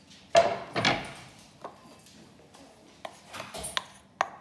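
Wooden spoon scraping and knocking chopped onion, garlic and ginger off a wooden chopping board and out of a small ceramic bowl into a pot: two loud scrapes in the first second, then lighter taps and scrapes.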